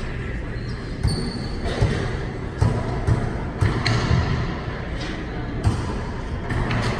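Wallyball rally: the rubber ball is struck and bounces off the walls and floor of an enclosed court, about eight irregularly spaced thuds that echo.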